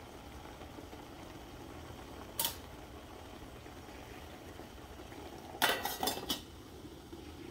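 Stainless-steel mess-tin lid clinking against its pot. There is one clink about two and a half seconds in, then a quick run of about five metallic clinks near six seconds as the lid is set down on the pot.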